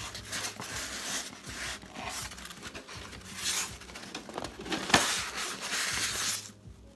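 Packaging being handled: a white styrofoam box scraping and rubbing against a cardboard shipping box as it is worked out of it. There is a sharp snap about five seconds in.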